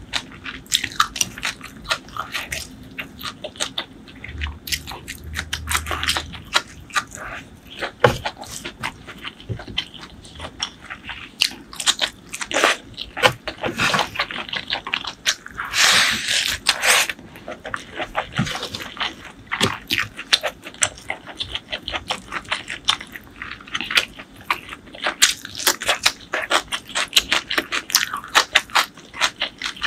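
Close-miked eating: a person chewing and crunching food, with many short wet clicks from the mouth and a longer loud crunch about sixteen seconds in.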